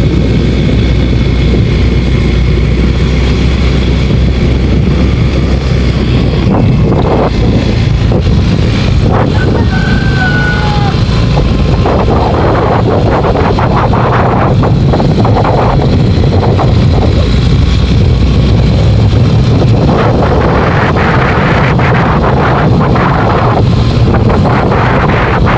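Small motorcycle engine running steadily while riding, with wind rushing over the microphone.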